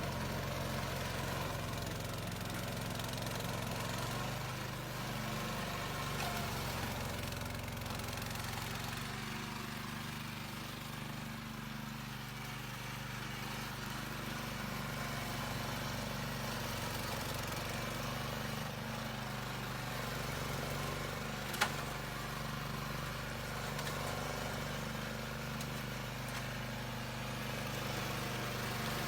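Remote-controlled lawn mower's engine running steadily, with a single sharp click about three quarters of the way through.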